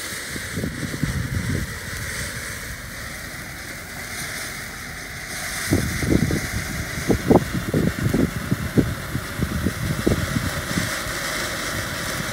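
Two ground fountain fireworks spraying sparks with a steady hiss. From about six seconds in, irregular low thuds come in, louder than the hiss.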